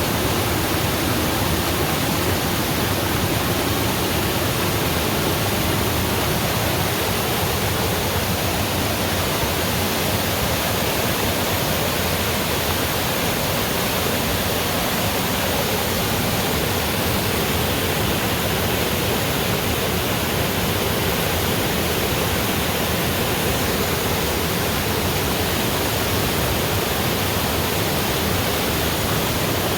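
Waterfall rushing: a steady, loud roar of falling water that doesn't change.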